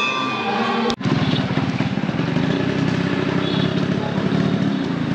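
Brief devotional singing that cuts off about a second in, followed by a small engine running steadily with a fast, even pulse, amid street traffic noise.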